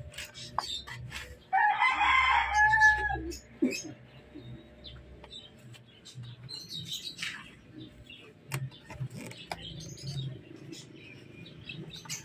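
A rooster crows once, about a second and a half in: a loud call lasting under two seconds that ends on a held note. Faint scattered clicks sound around it.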